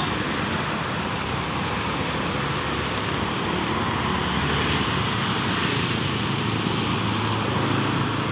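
Steady road traffic: cars and motorcycles passing, with a fuel tanker truck's engine passing close by about halfway through.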